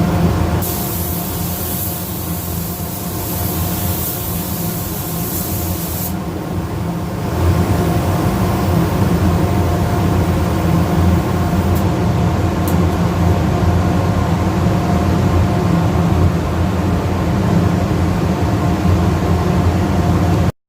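Spray gun hissing as primer is sprayed onto a car hood for about five seconds, starting just after the beginning, over a steady machine hum. The hum gets louder about seven seconds in and keeps going.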